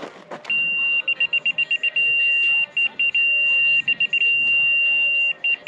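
Laser level receiver on a grade rod sounding a high-pitched tone that switches between a solid steady tone and runs of rapid beeps as the rod is set on the footer form boards. The solid tone means on grade and the fast beeps mean just off grade.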